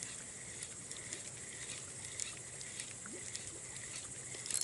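Quiet evening ambience: a faint, steady high chirring of insects, with scattered faint light ticks.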